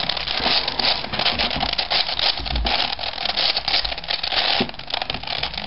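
V-Cube 7 puzzle cube's plastic layers being twisted in quick succession through a sequence of moves, a rapid run of clicks and clacks.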